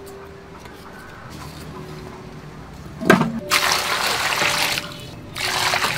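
Water poured into an aluminium pot of peeled taro root pieces, in two pours of about a second each, starting about three seconds in after a short knock.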